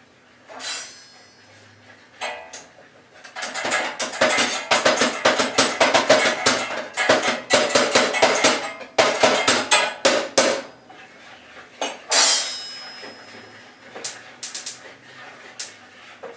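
Gas stove spark igniter clicking rapidly while someone tries to light a burner: a run of sharp clicks lasting about seven seconds, starting a few seconds in, with a few separate knocks before and after.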